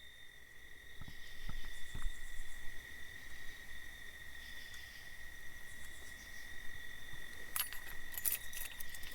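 Night insects chirring steadily in one high, unbroken tone. From about three-quarters of the way in, a rattle of close clicks, like keys or gear being handled, runs over it.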